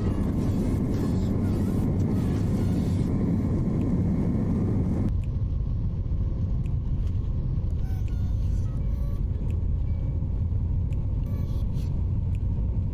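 Steady low rumble of a vehicle in motion, with an abrupt change in its sound about five seconds in.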